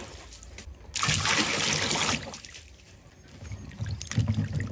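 Water pours into a steel bowl of fruit for about a second, starting about a second in. Near the end, hands slosh and rub the mangoes, green tomatoes and limes in the water to wash them.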